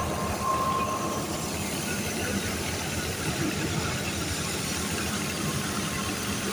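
Wheat thresher running steadily, a continuous mechanical noise with a low hum underneath.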